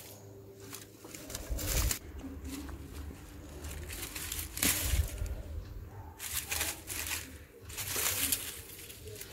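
Leafy weeds and groundcover stems being pulled and torn up by hand, giving short bursts of rustling and crackling several times.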